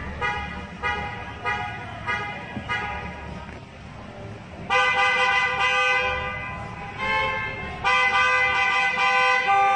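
Car horn honking: a string of short beeps about two per second, then from about five seconds in, long held blasts with only brief breaks.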